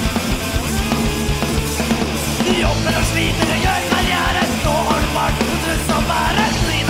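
Punk rock song played by a full band, running loud and dense. A sung vocal comes in about two and a half seconds in.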